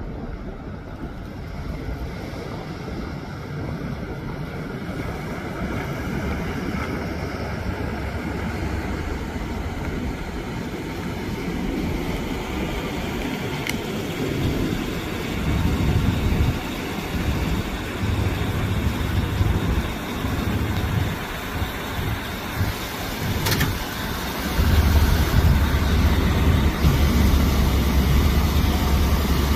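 Jet engine noise from a pair of high-flying fighter jets, a steady distant rush that slowly grows louder. Gusts of wind rumble on the microphone from about halfway through, strongest near the end.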